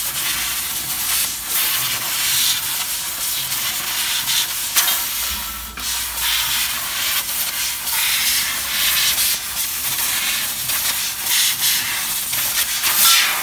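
Fiber laser pipe-cutting machine cutting a square metal tube: a loud, steady hiss from the cutting head, with uneven surges in strength.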